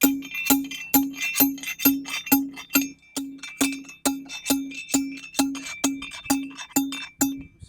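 Background music with a steady beat: an evenly paced run of pitched, wood-block-like strikes, a little more than two a second, that stops just before the end.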